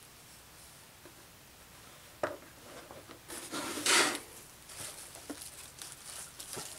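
Handling noises on a tabletop: a single light knock about two seconds in as the doll is set down on the table, then a short burst of rustling and scraping near the middle, followed by a few small clicks as the cardboard box is handled.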